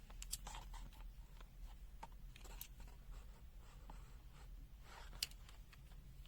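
Faint handling noise from a multimeter and its test probes: a few small clicks and light scratching, over a steady low hum.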